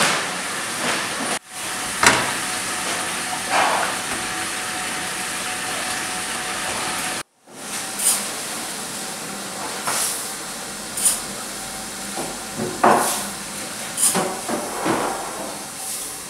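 Steady kitchen hiss with a few knocks. After a cut, small grains frying in hot oil in a large steel pot sizzle while a metal ladle scrapes and knocks as it stirs, about every second or two.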